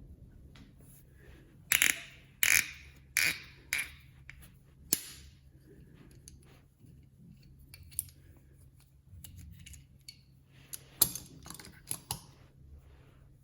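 A series of sharp clicks and knocks from hard tool and angle grinder parts being handled: about six in the first five seconds, one more later, then a cluster of about four near the end.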